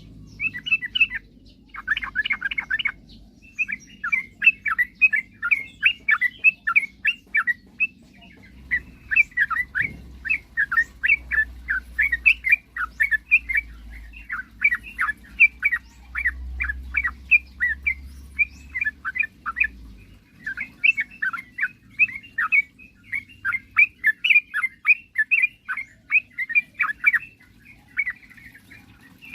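Yellow-vented bulbul (trucukan) singing a fast, unbroken run of bubbly chattering notes, with only brief pauses.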